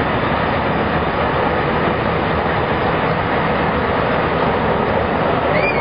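Steady jet engine noise from a Boeing 787 Dreamliner's Rolls-Royce Trent 1000 engines as the airliner rolls out along the runway after landing.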